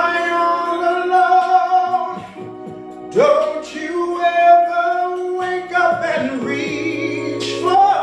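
A man singing a soul ballad over an instrumental backing track, holding long notes with vibrato in three phrases.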